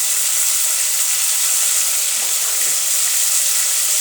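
Onions and spices frying in cooking oil in a pan, a steady sizzle.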